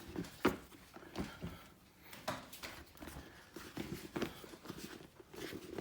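Rags and oven mitts being stuffed into a rubber Halloween mask: soft rustling and handling, with a few scattered knocks.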